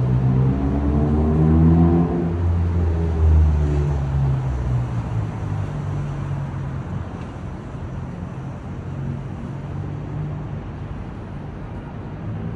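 City street traffic. A motor vehicle's engine passes close in the first three seconds or so, then a steady traffic rumble continues.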